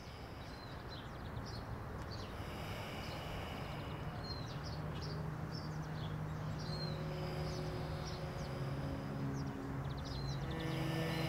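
Small birds chirping repeatedly over a steady background hiss of outdoor ambience. Low, held tones come in about halfway and grow louder toward the end.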